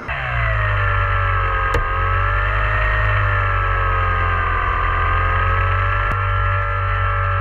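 RC plane's electric motor and propeller whining steadily, heard from a camera on board, over a low wind rumble on the microphone. The whine starts abruptly, drops in pitch in the first second, then wavers slightly up and down.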